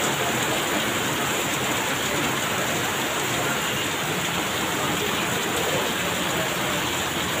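Torrential rain pouring steadily onto wet paving and parked motorbikes and cars.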